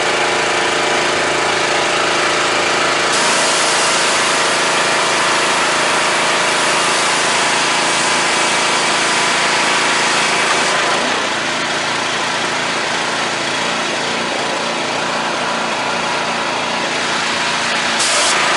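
Small gasoline engine of a pressure washer running steadily just after being pull-started. Its note changes and drops slightly in level about 11 seconds in.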